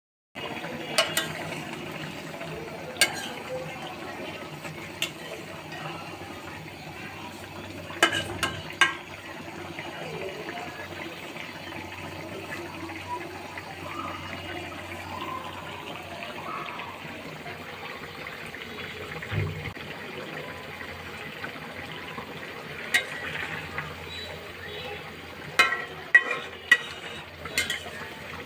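Kitchen preparation sounds: scattered sharp clicks and knocks of utensils and dishes over a steady background hiss, with a cluster of clinks near the end.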